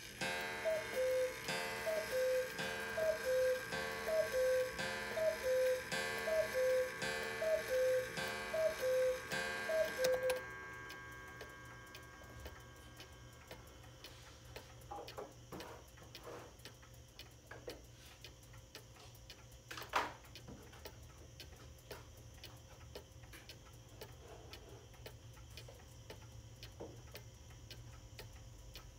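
Antique Johann Baptist Beha Black Forest cuckoo clock striking nine o'clock: a two-note cuckoo call, high then low, with a strike on each call, about once a second for ten seconds. After that the movement ticks steadily.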